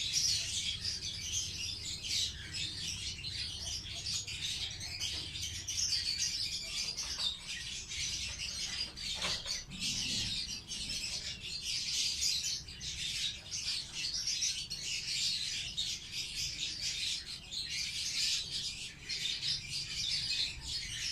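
Pet lovebirds chirping, a dense, continuous run of high chirps.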